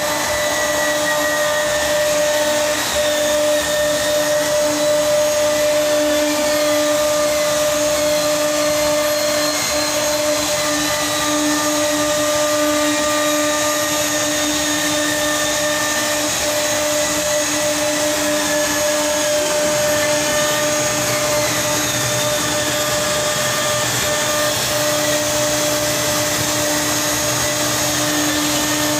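A machine running steadily with a loud whir and a held whine. About twenty seconds in, the whine's low tone drops out and a deeper hum takes over for a few seconds before the low tone returns.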